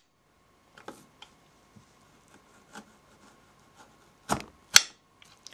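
Kitchen knife slicing through a cucumber, the blade knocking down onto the board beneath: scattered soft clicks, then two sharper knocks about half a second apart roughly four seconds in.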